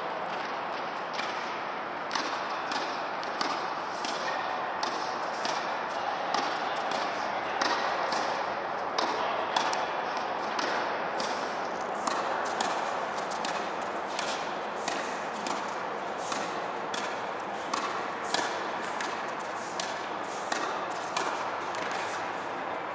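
Tennis balls being struck by rackets and bouncing on the court: sharp hits about twice a second over steady background noise.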